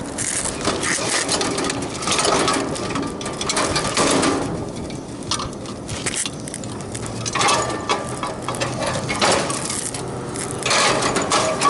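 Scraping and clunking of a heavy refrigeration compressor being pulled out of its condensing unit by a screwdriver used as a handle, in repeated bouts every second or two.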